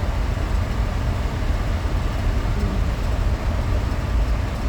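Steady low rumble of a minivan driving, engine and tyre road noise heard from inside the cabin.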